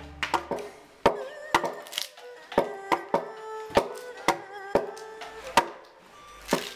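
Carpenter's axe chopping into a flat timber beam, a dozen or so sharp blows at about two a second, hewing the beam's slightly arched underside into shape.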